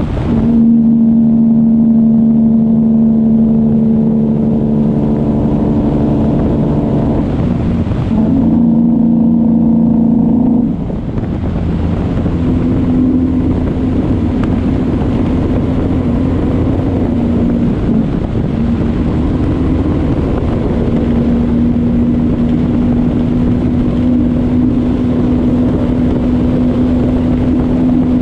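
A semi-truck's diesel engine running steadily under way on the highway, a constant droning note with road and wind noise. The note breaks briefly about eight seconds in, then changes and drops a little about eleven seconds in.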